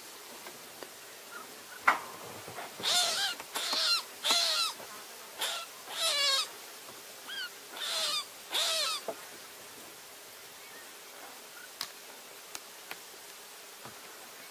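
A rabbit screaming in distress while a mongoose bites it: about seven short, high, wavering cries between about three and nine seconds in, after a sharp click near two seconds.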